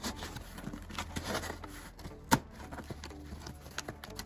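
Box cutter slitting the packing tape on a cardboard box: uneven scraping and rustling of blade, tape and cardboard, with one sharp knock a little over two seconds in.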